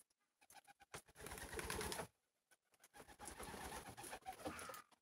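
Pigeons sounding in two spells, the first about a second in and lasting about a second, the second longer and running nearly to the end.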